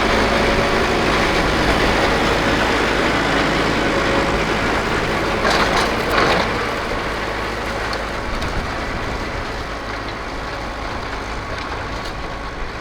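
Farm tractor engine running steadily as it pulls a plough through sod, with a short burst of louder noise about halfway through, after which it gradually gets quieter.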